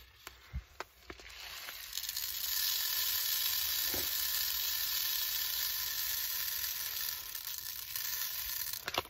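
Plastic poly pellets pouring from a spouted pouch through a plastic funnel, a steady hiss that builds over the first two seconds and stops just before the end. A few light clicks of handling come first.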